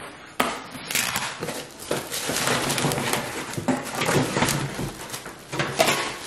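Plastic wrap crinkling and cardboard packing rustling as a plastic-wrapped metal grill panel is handled and lifted out of its box.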